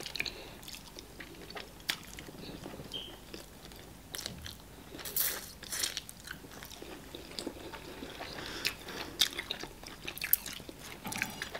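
Two people eating by hand and chewing starch fufu and banga soup with goat meat: soft wet mouth sounds with scattered small clicks and smacks, irregular throughout.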